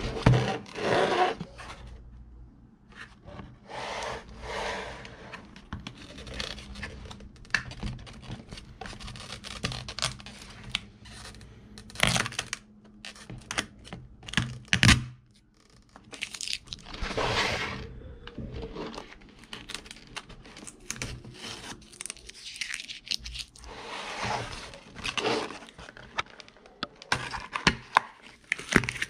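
Cardboard box and plastic blister packaging handled and pulled open by hand: repeated rustling and scraping of card and plastic, with sharp clicks and snaps, the loudest about twelve and fifteen seconds in.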